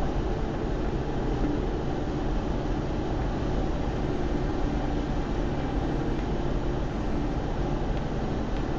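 Steady road and engine noise of a car cruising at speed on a highway, heard from inside the cabin: an even low rumble with a faint hum.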